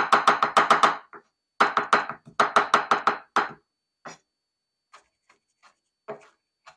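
Kitchen knife rough-chopping fresh parsley on a cutting board: quick strokes about eight a second in three runs, then a few scattered light taps over the last few seconds.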